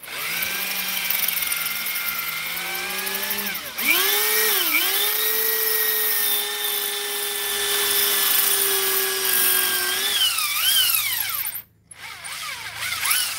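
Electric drill boring a hole, likely into rebar-reinforced concrete. Its motor whines steadily, drops sharply in pitch twice about four seconds in as it bogs under load, wavers again later, stops near the end and briefly starts up once more.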